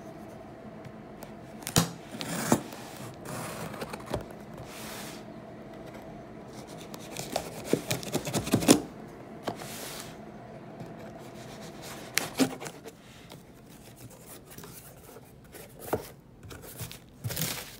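Packing tape on a cardboard box being slit and torn open, with irregular scrapes, rips and box-handling noises. Near the end come more rustles as the flaps are opened over foam packing peanuts. A faint steady hum runs underneath for the first part.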